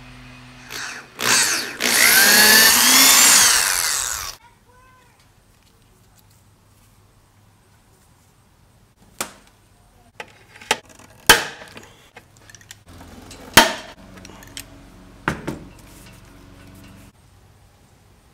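A handheld power tool runs for about three seconds, its pitch sweeping up and down, then stops abruptly. After a quiet stretch come a series of sharp knocks and taps, two of them much louder than the rest.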